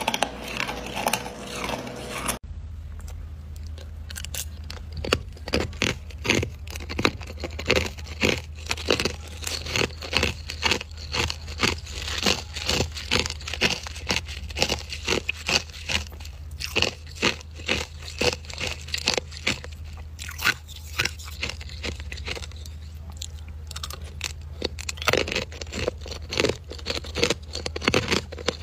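Hard ice crunching and cracking in quick, irregular sharp strikes, several a second, thinning out for a few seconds past the middle, over a steady low hum.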